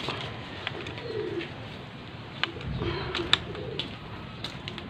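A dove cooing low a few times, with scattered light metallic clicks and taps of tools on engine parts.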